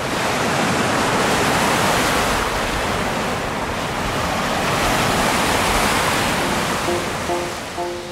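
Ocean surf washing onto a sandy beach: a steady rushing that swells twice as waves break. A few soft music notes come in near the end.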